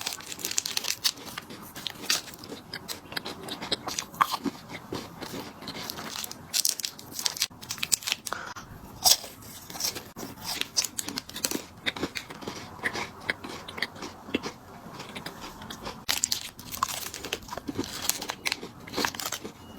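Crunching and chewing of crisp chocolate biscuit snacks, close to the microphone: many sharp, irregular crunches as bites are taken and chewed.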